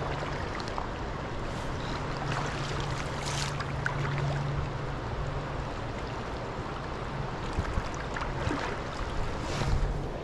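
Shallow creek current rushing steadily over a shale riffle, with a low steady hum under it that drops out about halfway and comes back near the end, and a few short knocks near the end.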